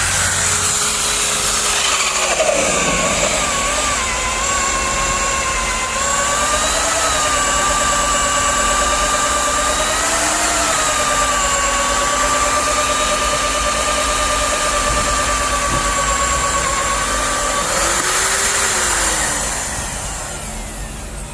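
Nitto WOJ-3200 magnetic drill boring steel plate, its motor whining under load with a hissing cutting noise. The pitch sags about two seconds in as the cutter bites, wavers, then holds steady. Near the end the cutting noise stops and the motor's pitch swings up and back down as it winds off.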